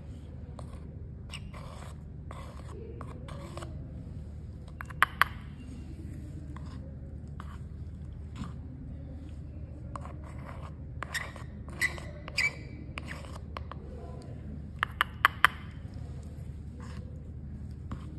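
Straight metal spatula scraping across a measuring scoop to level off soft dental plaster powder. Scattered short scrapes and sharp clicks and taps as the scoop is filled and emptied, loudest about five seconds in and again around fifteen seconds, over a steady low hum.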